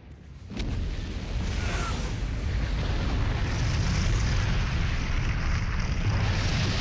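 A sudden blast about half a second in, then a sustained low rumble of explosion that swells a little and carries on: a torpedo striking and blowing up a ship.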